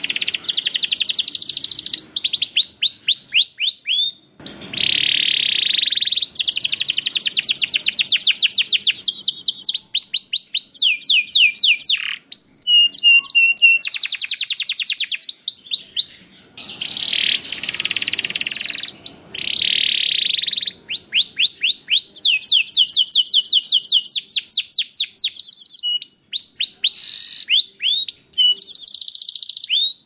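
Domestic canary singing a long, fast song: runs of quick repeated falling notes and buzzy trills, broken by several short pauses.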